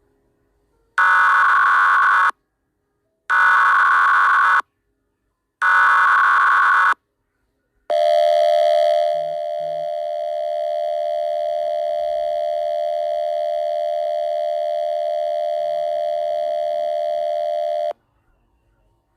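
Emergency Alert System alert opening: three bursts of the SAME digital header, a warbling data screech each about a second long. Then a single steady, buzzy attention tone holds for about ten seconds and cuts off suddenly.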